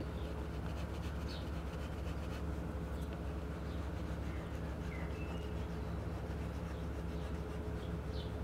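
A steady low hum, with faint rubbing as clear adhesive film is pressed onto the edge of a wooden door, and a few short bird chirps about a second in, near the middle and near the end.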